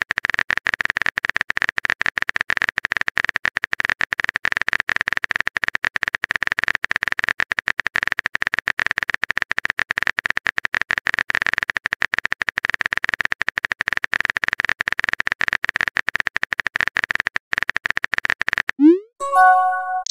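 Rapid keyboard-typing clicks, a fast, irregular stream of taps as a message is typed out on a phone. Near the end they stop and a short rising message-sent tone plays.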